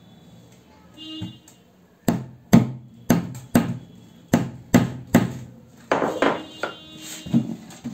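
A quick run of sharp knocks on a hollow plastic jerrycan, about nine over three seconds, followed by a few rougher, scraping knocks near the end.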